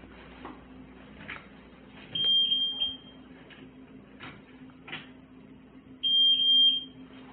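Electronic alarm beeper sounding a high steady tone twice, about four seconds apart, each time as about three quick beeps run together. A few soft knocks come in between.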